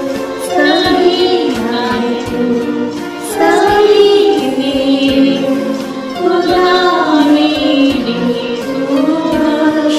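Music: a devotional prayer song sung by young voices over instrumental accompaniment, the melody moving in slow, held notes.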